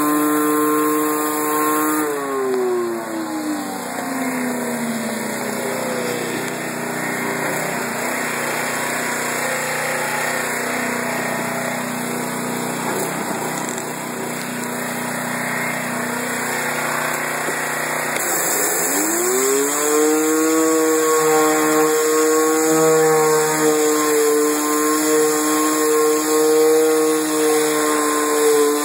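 Gas pressure washer running, driving a Briggs & Stratton rotating surface cleaner that sprays over wet brick. A steady whine drops in pitch a couple of seconds in and gives way to a rushing spray. The whine then climbs back up about two-thirds of the way through and holds steady.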